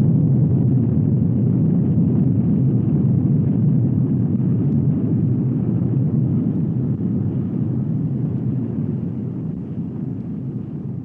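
A sound effect for the combustion: a deep, steady rumbling roar that slowly fades out over the last several seconds.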